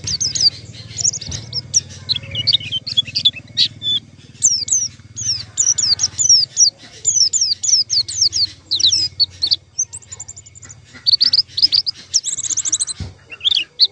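White-eye (pleci) song: a fast, continuous run of high, thin chirps and twitters, with a short lull about ten seconds in. It is the call used as a pancingan, to prompt caged white-eyes to sing. A faint steady low hum runs underneath.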